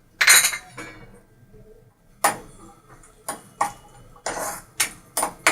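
A metal spoon clinking and scraping against a cooking pan in a series of irregular strokes, stirring cashew nuts and raisins frying in ghee.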